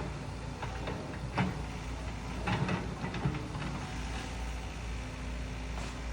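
SANY SY95 excavator's diesel engine running steadily while it pushes over a pine tree, with a few short cracks about a second and a half in and again around three seconds in.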